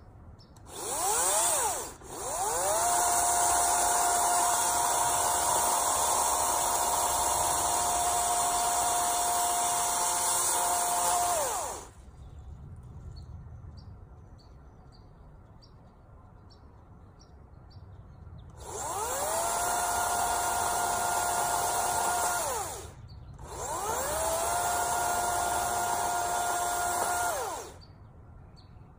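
Craftsman V60 cordless chainsaw's brushless motor and chain speeding up to a steady high whine and winding down again, four times: a short burst, a long run of about nine seconds, then two shorter runs with a brief pause between them.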